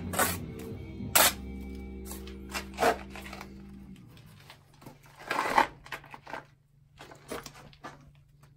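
Short scrapes and knocks of mortar work on an 8-inch concrete block as it is buttered and pressed into a course, the loudest about a second in and again about halfway through, over soft background music with a held chord.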